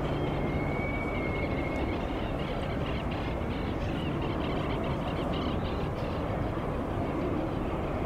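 Aircraft engine noise, a steady even roar with a faint high whine near the start.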